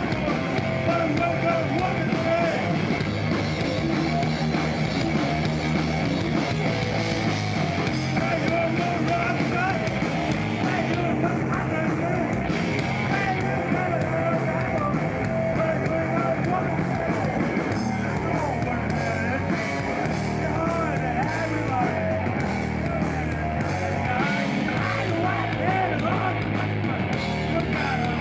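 Live rock band playing at a steady loud level: a male vocalist singing over electric guitar and bass guitar.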